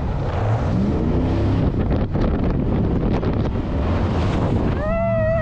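Jet boat running at speed on the river: engine and rushing water under heavy wind buffeting on the microphone. Near the end a high voice cries out.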